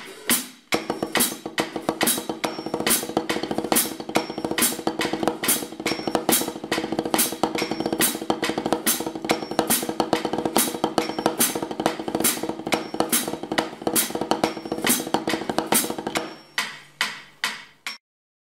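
Wooden drumsticks playing fast stroke-roll triplets on a Meinl rubber practice pad resting on a snare drum, a dense run of strokes with brighter accented strokes falling evenly on each beat at 140 BPM. Near the end the roll stops, a few single strokes follow, and then the sound cuts off.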